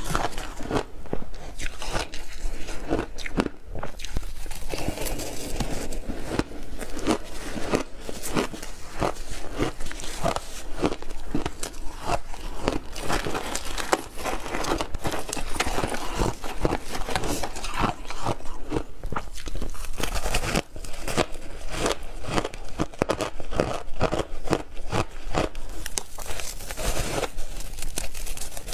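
Purple block ice coated in matcha milk powder crunching as it is bitten and chewed: a dense, continuous run of crisp cracks.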